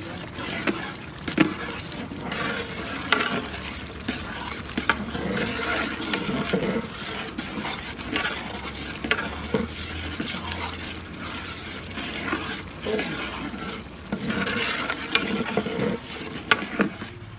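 Long metal ladle stirring a thick masala curry in a large aluminium pot, scraping through the bubbling, sizzling gravy with occasional sharp clinks against the pot.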